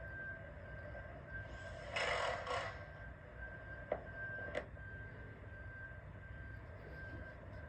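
An impact wrench fires in a short burst of under a second, about two seconds in, running up a bolt on a full seal repair clamp on a water main. Two sharp metal clicks follow, over a steady low rumble.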